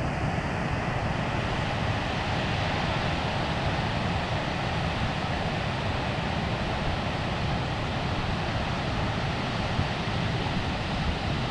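Ocean surf breaking and washing up a beach, a steady rush of noise, with wind rumbling on the microphone.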